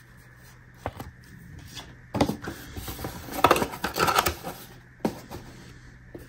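Handling noise from a cardboard sunglasses box and a paper card: scraping and rustling in two stretches, with a light knock about a second in and another about five seconds in.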